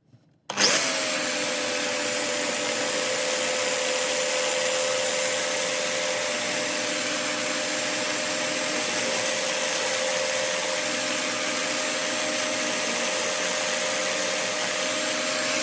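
Cordless drill, mounted as a small lathe, switched on about half a second in and running at steady speed with a steady motor whine, its 4 mm twist bit drilling into a small wooden float body.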